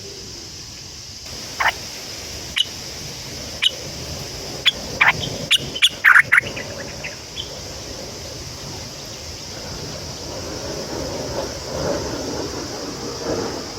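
Bird calling: short, sharp calls about one a second that quicken into a rapid cluster around six seconds in, then stop. A steady high hiss, like insects, runs underneath, and a low rustling noise rises over the last few seconds.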